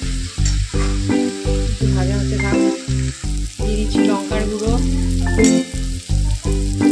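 Background music over sliced onions and green chillies sizzling as they fry in oil in a wok, stirred with a metal spatula.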